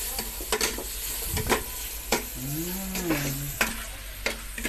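Shrimp and squid balls sizzling in hot oil in a stainless steel pot while a spatula stirs them, knocking and scraping against the pot again and again.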